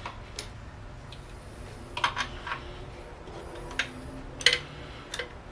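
Scattered small clicks and knocks of hands working parts in a car's engine bay: a quick cluster about two seconds in, then single knocks, the loudest about four and a half seconds in.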